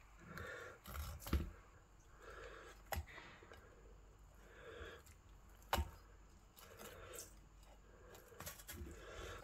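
Kitchen string being cut with a knife and pulled off a roast rabbit on a plastic cutting board, with three sharp snaps as strands part and soft handling sounds between.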